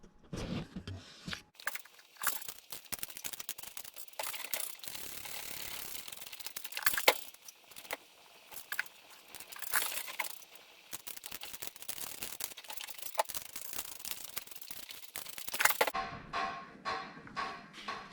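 Hand tools working the hinge bolts on a truck door: a long run of rapid metallic clicking and clinking, with a few louder knocks.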